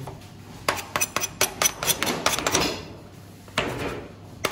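Kitchen clatter of metal on metal: a quick run of sharp knocks and clinks starting about a second in, then two more single knocks later.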